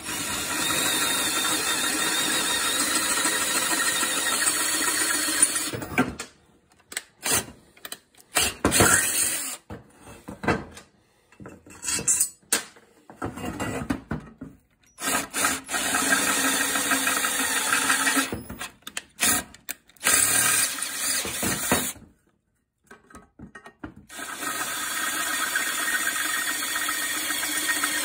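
Electric drill with a bit enlarging the existing bolt holes in the steel upper control arm, because the new ball joint's bolts are too tight to fit. It runs steadily for about six seconds, then in short starts and stops, then in longer steady runs with a brief pause near the end.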